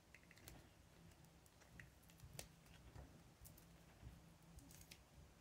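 Near silence with faint, scattered clicks of fingers handling a yellow plastic-sheathed coin cell battery, a sharper click about halfway through and a few more near the end.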